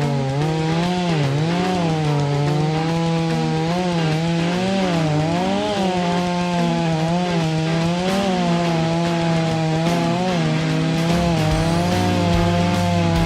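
Chainsaw running hard, its engine pitch rising and falling as it works through wood.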